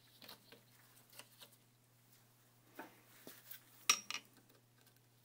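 Faint taps and small clicks of spark plug wire boots being pulled off the towers of an Atomic 4 distributor cap, the sharpest click with a brief ring about four seconds in. A low steady hum lies underneath.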